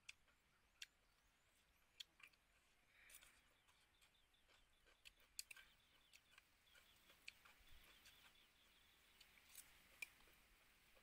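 Near silence, broken by faint scattered clicks of a metal spoon against a ceramic plate while eating.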